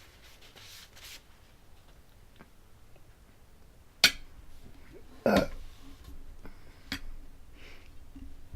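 A sharp click about four seconds in, then a short burp a second later, and a second, fainter click near seven seconds.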